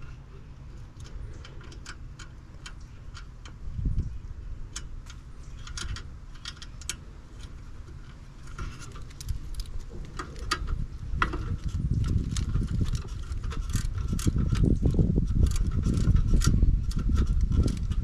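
Small clicks and light metallic rattles of hands working on a gas pack's gas valve, fitting the wire connectors and small parts. A low, uneven rumble builds up about halfway through and is loudest near the end.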